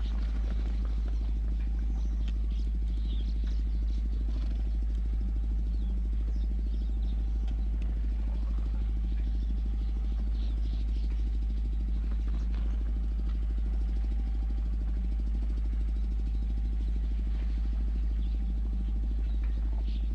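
A vehicle engine idling steadily, a low, even drone with a rapid regular pulse, with faint scattered high chirps and clicks above it.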